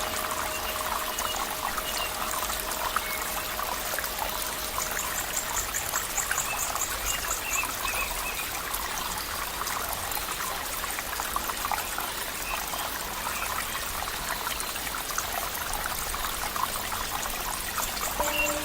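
Flowing stream water trickling and splashing steadily.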